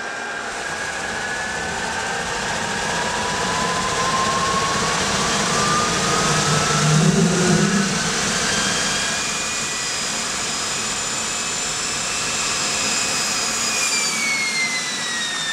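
Rolls-Royce Welland centrifugal-flow turbojet running up on a test stand: a rushing roar with a whine that climbs steadily in pitch as the engine is throttled up. A louder low rumble comes about halfway through, and near the end the whine slides down in pitch as the engine slows.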